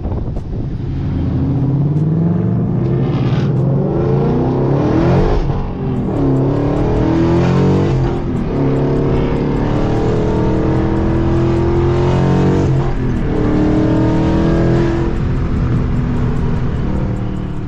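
Car engine and exhaust with newly fitted aftermarket mufflers, heard while the car accelerates on the road: the engine note climbs in pitch and drops back at each of several gear changes.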